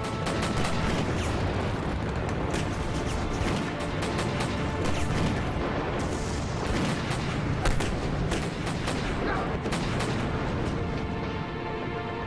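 Dramatic music with repeated gunshots and booms of a battle scene over it, the shots coming irregularly.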